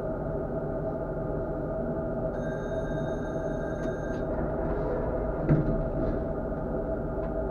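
Tatra KT4D articulated tram running, heard from the driver's cab: a steady rolling drone with a constant hum. Near the middle a high, thin ringing tone sounds for about two seconds and cuts off. A single knock follows a little later.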